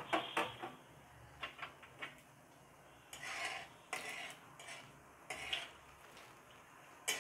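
Flat metal spatula scraping and clinking against a metal kadai while stirring mustard seeds in a little hot oil, in short irregular strokes with the sharpest clinks near the start.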